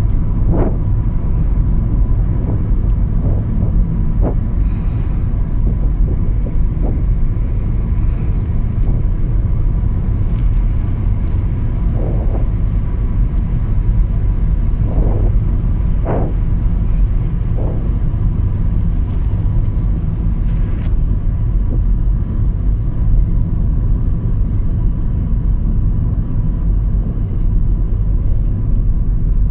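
Steady low rumble of a Nissan car's road and engine noise, heard from inside the cabin while driving at speed.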